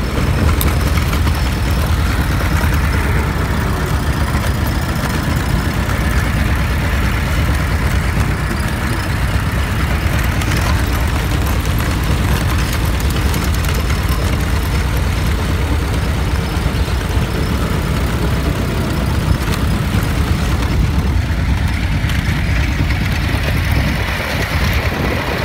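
A Ford Model T's four-cylinder engine running steadily as the car drives along.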